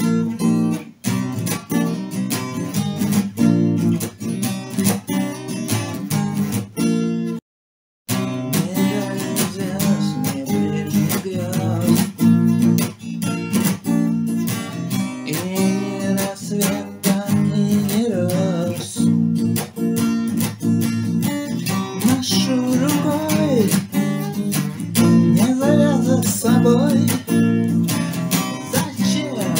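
Acoustic arrangement of a song: a strummed acoustic guitar with a singing voice, heard as sound taken unprocessed from a Tecno Spark 9 Pro phone. About seven seconds in, the sound cuts out completely for about half a second.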